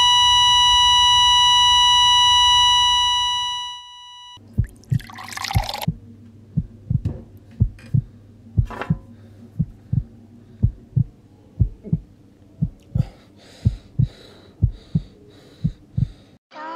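A steady high ringing tone that fades out after about three and a half seconds, followed by a heartbeat sound effect: pairs of short low thumps about once a second over a low hum, with a brief rushing noise about five seconds in.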